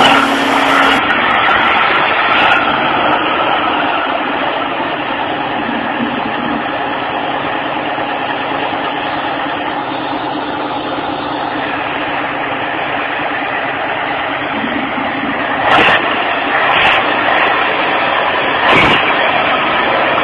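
A heavy machine's engine running steadily, with three sharp knocks in the last few seconds.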